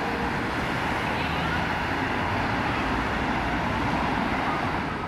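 City street traffic: cars passing on a busy road, a steady rush of tyre and engine noise.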